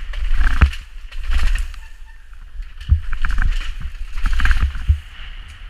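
Downhill mountain bike rattling down concrete stairs: tyres thudding onto the steps and the bike clattering, over a steady wind rumble on the helmet camera's microphone. Several heavy thumps, about half a second in, around three seconds and near five seconds.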